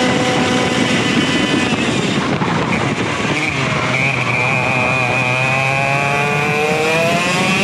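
Vortex ROK GP 125 cc two-stroke kart engine heard from the kart itself: held at high revs, the revs fall away about two seconds in and run low and uneven, then climb steadily in pitch from about five seconds in as the kart accelerates again.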